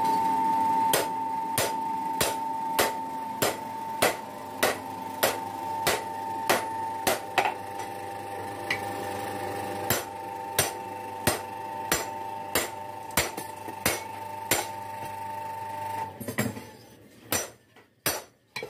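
Hammer striking steel on an anvil in a steady rhythm, about three blows every two seconds, over a workshop motor's steady hum. The hum cuts out about sixteen seconds in, and a few scattered, quieter strikes follow.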